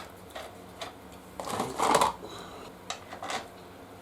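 Brake caliper clinking and scraping against metal as it is fitted over the disc, loudest about two seconds in, over a steady light ticking about twice a second.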